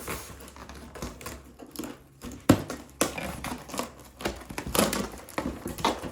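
A cardboard shipping box being opened and its contents handled: irregular crackling, tapping and scraping of cardboard, with one sharp knock about two and a half seconds in.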